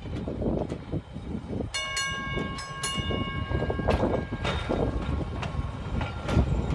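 Vintage electric trolley car rolling slowly past, its wheels rumbling on the rails with sharp knocks over rail joints and a switch. Its gong is struck about four quick times near two seconds in, and the ringing fades out over about two seconds.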